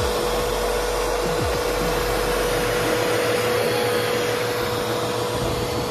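Bissell PowerLifter Swivel Pet vacuum cleaner running steadily: an even motor and airflow rush with one held tone through it.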